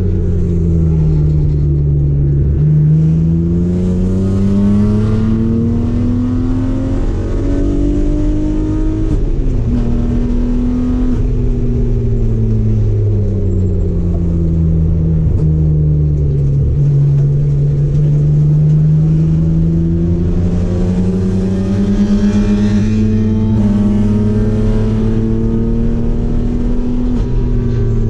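Race car engine heard from inside the car under hard running, its pitch falling and rising as it slows for and powers out of corners. There is a quick drop in pitch about a third of the way in, like an upshift, and a long climb in revs over the last part.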